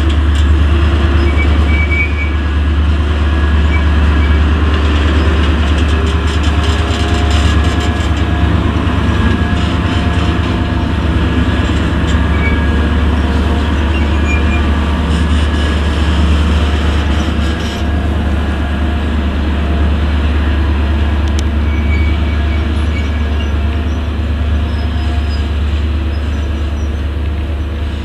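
Diesel engine of a DB V90 diesel-hydraulic shunting locomotive running with a loud, steady low drone, with a faint high tone here and there above it.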